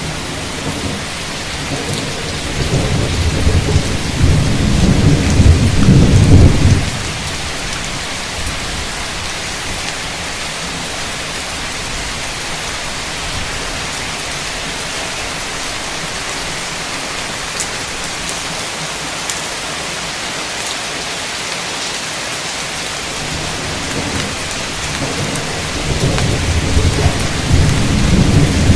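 Heavy rain falling steadily in a dense hiss, with two long rolls of thunder. The first builds over the opening seconds and cuts off sharply about a quarter of the way in; the second swells up near the end.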